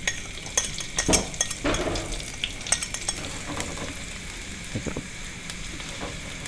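Sliced shallots and chillies sizzling in hot oil in an aluminium wok. The sizzle swells about a second in as the food lands, with a metal spoon and spatula clinking and scraping on the pan.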